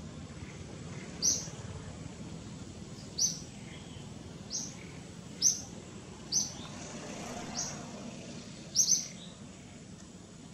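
A bird calling with short, high chirps, repeated about every one to two seconds, with a quick double chirp near the end, over faint steady background noise.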